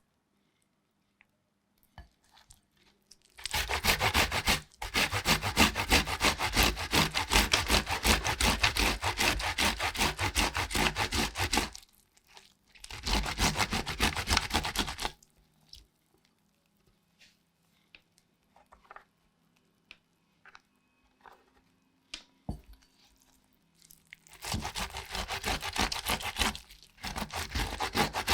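Rapid, rhythmic scraping strokes of food being worked by hand with a kitchen tool, in three bouts: a long one of about eight seconds, a short one of about two and a half seconds, and a last one starting near the end.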